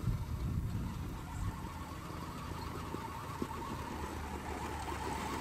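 The twin electric motors of a 1/10-scale Axial SCX10-based RC crawler truck whining as it drives across frozen ground, getting louder near the end as the truck turns toward the listener.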